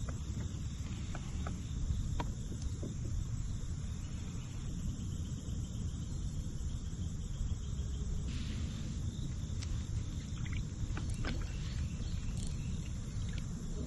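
Open-air river ambience: a steady low rumble with a thin, steady high insect drone. A few light clicks and taps come from fishing tackle being handled, mostly in the second half.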